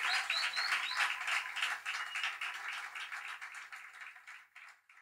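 Audience applauding, the clapping fading out over a few seconds.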